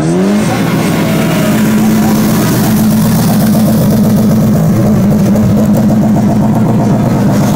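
Car engine revving up, then held at steady high revs with a fast, even beat.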